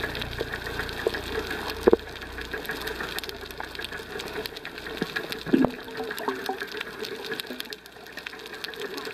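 Underwater reef sound picked up by a waterproof camera: a dense, continuous crackle of small clicks with a low rumble that fades about halfway through. Two louder knocks come about two seconds in and again past the middle.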